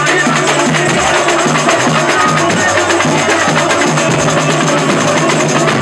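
Samba music with a dense, steady drum and percussion beat.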